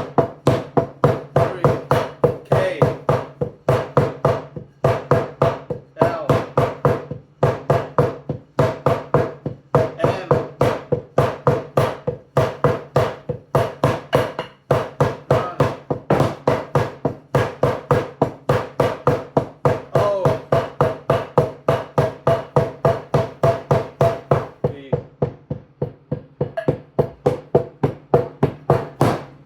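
Taiko bachi, thick wooden drumsticks, played in a steady run of about four strikes a second, working through accent patterns with some strokes louder than the rest. The strikes grow softer near the end.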